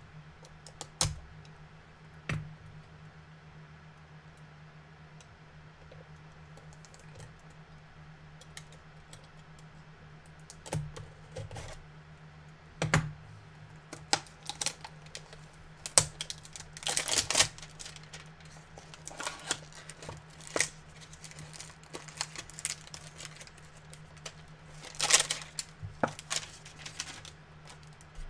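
A cardboard trading-card hanger box being opened and handled by hand: scattered clicks and taps of cardboard, with a few denser spells of crinkling and rustling, the longest about two thirds of the way through.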